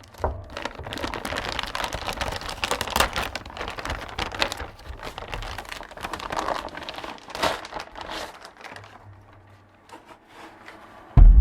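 Packaging being handled during unboxing: plastic wrapping crinkling and rustling in dense irregular crackles, dying down after about nine seconds, then a single loud thump near the end.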